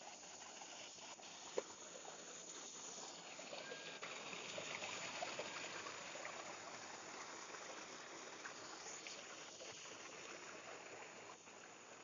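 Small rocky stream running and splashing over boulders in little cascades, a steady rush of water that grows louder in the middle. A single sharp click about a second and a half in.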